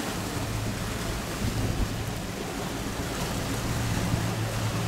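Boat motors running steadily under way, a low even hum, with wind and water rushing past.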